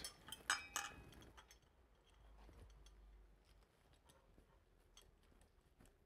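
Light clicks of electrical wires and a plastic wire nut being handled as the white neutral wires are twisted together, a few in the first second or so, then near silence.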